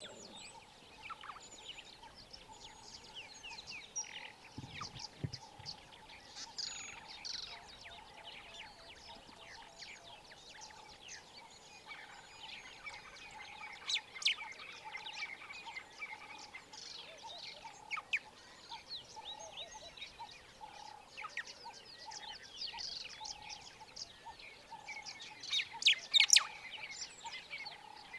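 Small wild birds chirping and calling over a steady pulsing drone. A brief low sound comes about five seconds in, and a few sharp clicks are loudest near the end.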